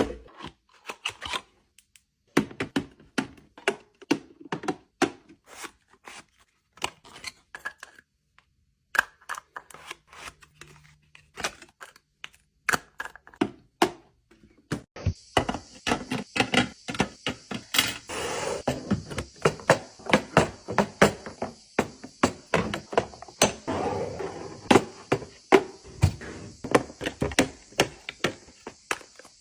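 Makeup products and packaging being handled: a rapid run of taps, clicks and knocks, thicker in the second half, when a steady hiss joins in.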